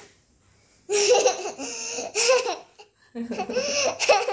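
Young child laughing in two stretches of high, wavering laughter, one starting about a second in and the other just past three seconds, with a short break between.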